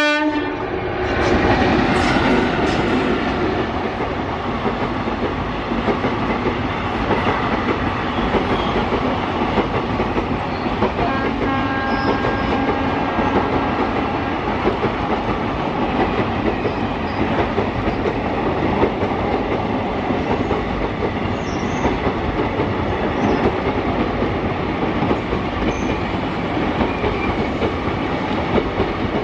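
Electric-hauled passenger train passing close by: loudest as the locomotive goes past in the first few seconds, then the steady rumble and clickety-clack of the coaches' wheels running over the rail joints.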